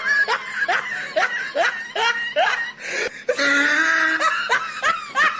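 A man laughing in a string of short, rhythmic bursts, with a longer drawn-out stretch about three seconds in.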